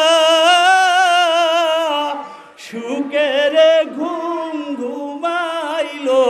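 A man singing a Bengali Islamic gojol unaccompanied into a microphone. He holds one long note with a slight vibrato for about two seconds, breaks off briefly, then sings quick ornamented runs and settles onto another held note near the end.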